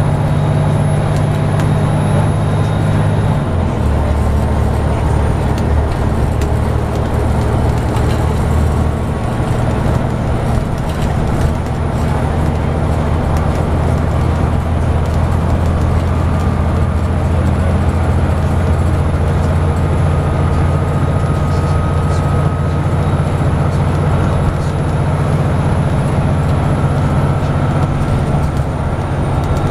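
Scania N94UB double-decker bus's diesel engine running steadily under way, with road noise, heard from the upper deck. About three and a half seconds in, the engine note drops lower and then holds steady.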